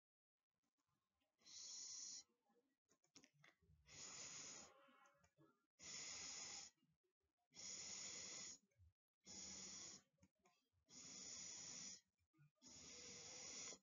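A woman's voice hissing the sound of the letter S, a drawn-out "sss", seven times, each about a second long and roughly two seconds apart, in a phonics letter-sound drill.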